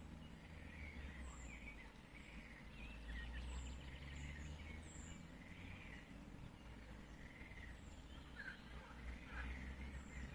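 Forest birds calling faintly, with several short, very high chirps falling in pitch, spread irregularly, over a steady low rumble.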